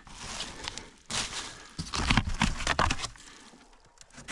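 Rustling and scuffing close to the microphone as a person shifts about in snow at a cabin's crawlspace: several noisy bursts over the first three seconds, then quieter.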